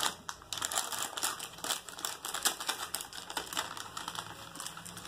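Plastic snack packet crinkling as it is handled and snipped open with scissors: a steady run of irregular crackles and clicks.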